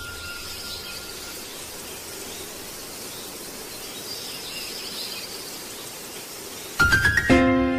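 Steady background hiss with faint high chirps. Near the end, a quick rising run of notes starts the background music, which settles into held chords.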